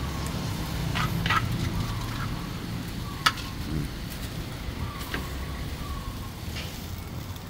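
Open-air street ambience: a steady low rumble with scattered light clicks and one sharp tick about three seconds in.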